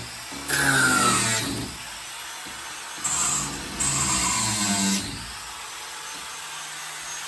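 Small angle grinder cutting through old nails in two bursts, its whine dropping in pitch as the disc bites into the steel, with a hissing grind over it; between cuts the tool runs more quietly.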